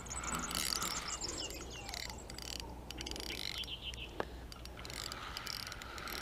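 Fixed-spool fishing reel clicking and whirring in patches while a hooked fish is played on a bent rod.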